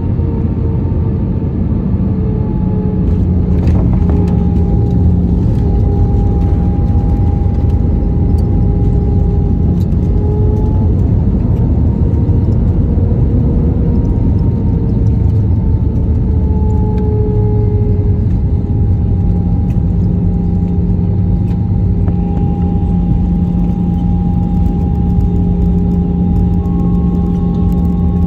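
Inside an Airbus A320-family airliner's cabin while it moves on the ground: a steady low rumble with a hum of engine tones that drift slowly down and up in pitch. A single click sounds about four seconds in.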